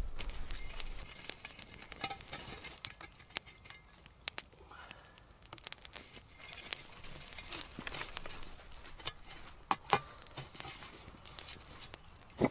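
Hot embers and coals being shovelled onto the lid of a cast-iron Dutch oven: a small spade scraping and tipping coals that clink and crackle, with a few sharper knocks about ten seconds in and at the end.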